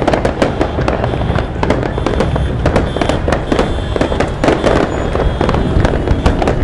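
Fireworks display going off: a dense, continuous run of sharp cracks and bangs, several a second, over a constant low rumble.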